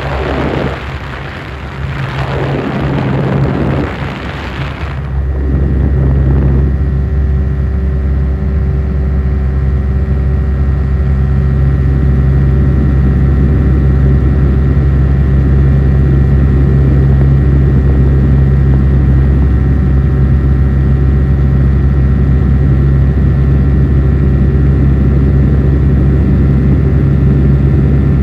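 Light propeller aircraft heard from inside the cabin. A loud rushing noise sweeps down and up in pitch for the first few seconds, then settles about five seconds in into a steady, even engine drone.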